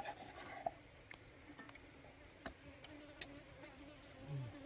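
A flying insect buzzing steadily and faintly, with a slightly wavering hum, starting about a second in. A few faint clicks are scattered through it.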